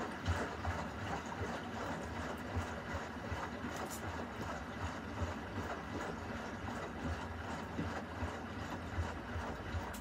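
Beko front-loading washing machine tumbling its drum mid-wash: water sloshing and splashing inside, over a steady low hum.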